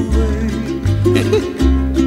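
Hawaiian song playing as background music: plucked strings over a steady bass line, with a short sliding melody line early on and again about a second in.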